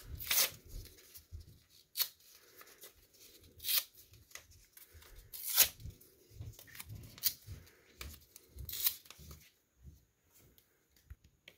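Black construction paper being torn by hand into small pieces: about half a dozen short rips, one every second or two.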